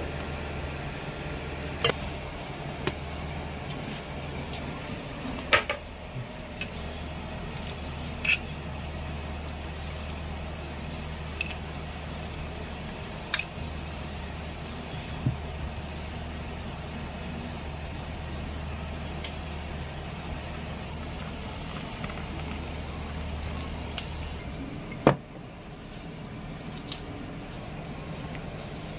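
A steady low hum, broken by a handful of sharp clicks and knocks from utensils and containers handled while a crepe is made. The hum cuts off near the end, just before the loudest knock.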